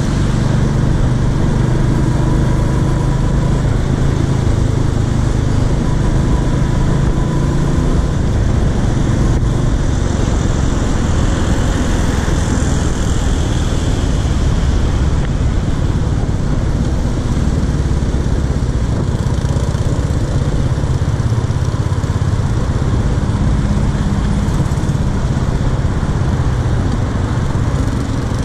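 Royal Enfield Classic 350's single-cylinder engine running steadily at cruising speed, heard from the rider's seat together with the rush of the ride.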